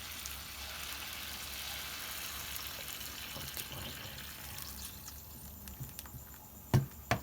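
Liquid poured in a steady stream into a bowl, most likely the soup poured over the noodles, running for about four and a half seconds before tailing off. A couple of sharp knocks come near the end.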